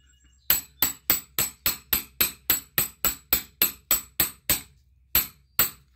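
A hammer striking a steel socket set against a cart wheel's hub bearing, driving the bearing out. About sixteen quick blows land at roughly three or four a second, then a short pause and two more blows near the end.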